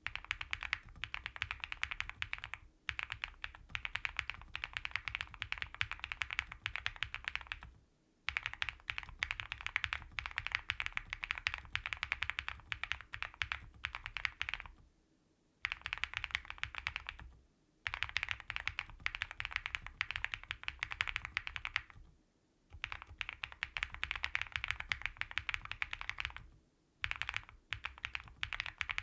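Rapid typing on a QK100 gasket-mount mechanical keyboard with a PC plate and full foams, fitted with linear switches (Bsun RAW stems and springs in Cherry MX Black housings) and TUT Night Owl keycaps. The typing comes in runs of fast keystrokes broken by short pauses.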